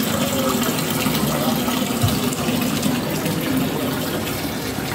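A thin stream of liquid pouring steadily into a steel drum of frothy salted lassi, an even splashing fill with no break.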